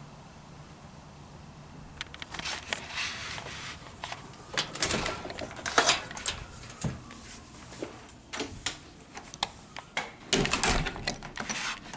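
A steady low hum, then from about two seconds in a long run of irregular clicks, knocks and rustling close to the microphone.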